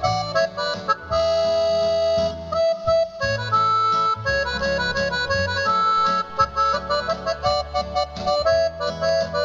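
Instrumental ranchera introduction on an electronic keyboard: a reedy, accordion-like melody of held notes over a steady bass accompaniment.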